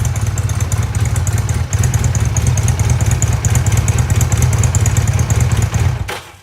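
Honda CD 200 Road Master's air-cooled parallel-twin engine idling steadily through its stock exhaust, an even low pulsing note with no revving, which falls away near the end.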